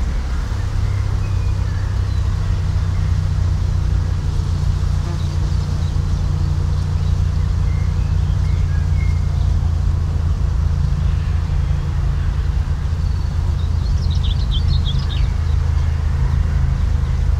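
A loud, steady low rumble with a few scattered bird chirps over it, and a quick burst of bird song about fourteen seconds in.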